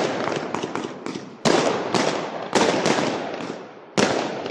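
Fireworks going off: three loud bangs about a second apart, each trailing off, with a string of small crackling pops in the first second.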